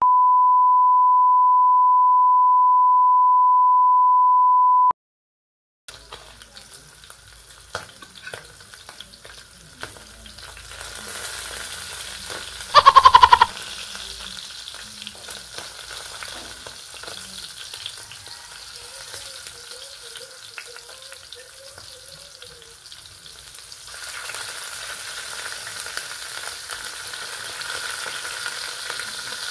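A steady high test-tone beep for about five seconds, then, after a brief gap, small fish frying in hot oil in a pan: steady sizzling with scattered taps of a metal spatula, growing louder near the end. About halfway a short, very loud tone falling in pitch cuts in.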